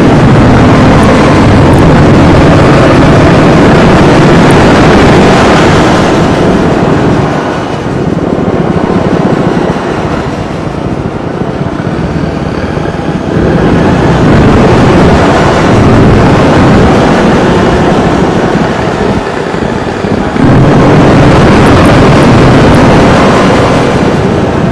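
Harsh noise music: a dense, distorted wall of noise, very loud. It eases somewhat from about seven seconds in and jumps back to full loudness about twenty seconds in.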